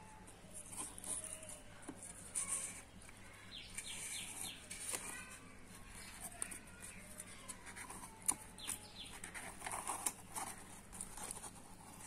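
Faint handling noise: rustling and light clicks as cardboard and thin wire are worked by hand, with faint bird calls in the background.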